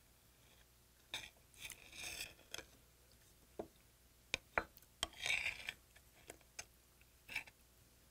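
A knife cutting raw yellow stingray liver in a ceramic bowl: scattered light clicks of the blade against the bowl and two short scraping sounds.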